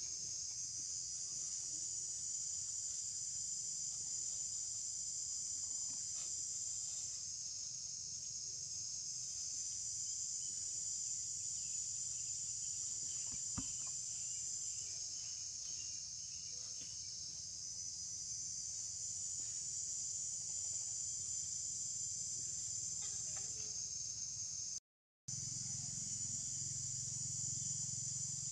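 Steady, high-pitched chorus of insects buzzing without a break, dropping out for a split second near the end.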